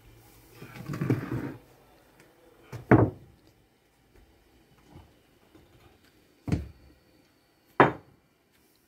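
Rough stones being shifted and set down on a stone-paved floor: a scraping shuffle about a second in, then three sharp knocks of stone on stone spread over the next five seconds.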